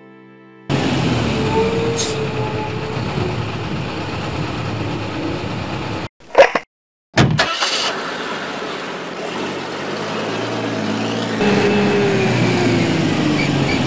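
A motor vehicle engine running, starting abruptly. About six seconds in it breaks off with a short loud sound and a moment of silence, then runs again, louder near the end.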